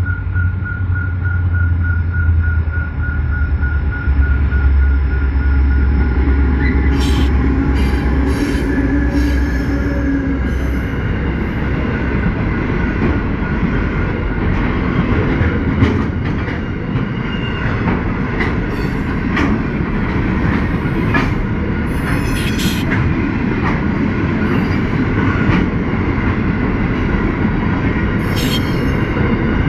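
Diesel-electric locomotives G521 and VL356 passing with a deep engine rumble, then a long container train rolling by with steady wheel-on-rail noise and high wheel squeals that come and go. In the first few seconds a level-crossing bell rings in an even pulse.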